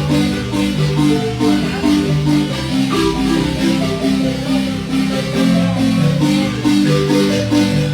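Marimba music: a son played on marimba, a steady flow of held notes in the low and middle range at a dance tempo.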